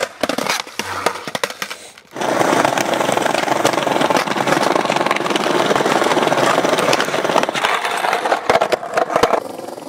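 Skateboard clacks and impacts on concrete, then skateboard wheels rolling over paving stones close to the microphone: a loud, rough rumble with rapid clatter for about seven seconds, ending in a few more sharp clacks.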